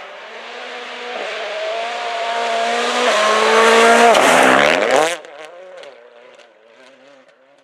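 Ford Fiesta RS WRC rally car's turbocharged 1.6-litre four-cylinder engine at high revs, approaching and passing on a snow-covered road. The engine grows louder for about four seconds, its pitch falls as it goes by, and it drops away suddenly about five seconds in, fading into the distance.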